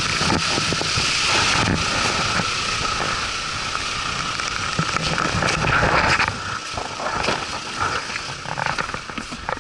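Strong wind blowing across the microphone, cutting down about six seconds in. Then a car door is opened, with short clicks and knocks.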